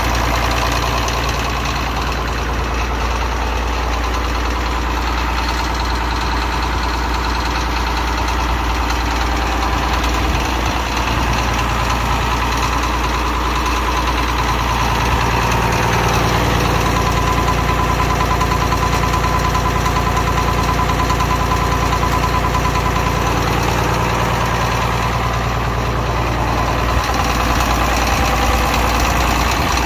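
Farmall 560 Diesel tractor's six-cylinder diesel engine idling steadily with a diesel clatter, a little fuller from about halfway through.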